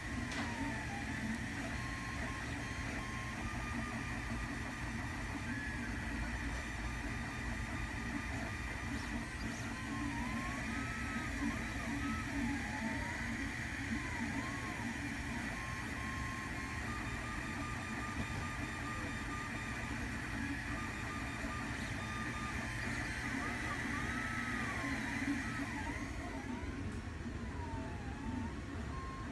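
3D printer running, its stepper motors whining in short held tones and rising and falling glides as the head moves, over a steady fan hum.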